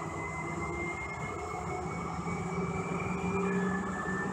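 Siemens S200 light rail car under way, heard from inside the passenger cabin: steady rumble of the running train with a high electric whine that slowly rises in pitch and drops back about three and a half seconds in.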